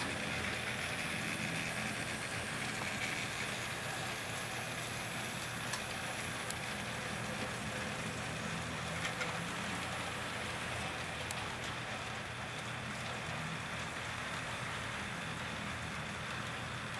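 HO-scale model freight train running on the layout: a steady rolling hiss and crackle of small metal wheels on rail, with a low motor hum and a few sharp clicks.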